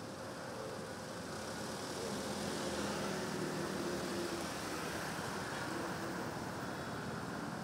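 Busy city street traffic: motorbike, minibus and car engines and tyre noise blending into a steady rumble, growing a little louder around the middle as motorbikes pass close by.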